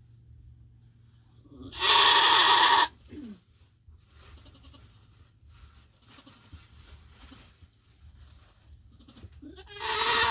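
Nigerian Dwarf doe in labor bleating loudly twice: a call about a second long roughly two seconds in, and a shorter one near the end.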